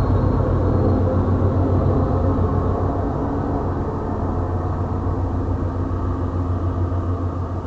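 Steady low rumble of an MBTA commuter-rail diesel locomotive pushing its train past and away, slowly fading, heard from inside a vehicle.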